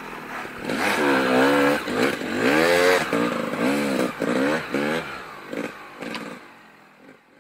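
Snowbike's dirt bike engine, revved up and down repeatedly in short pushes of the throttle, then fading out near the end.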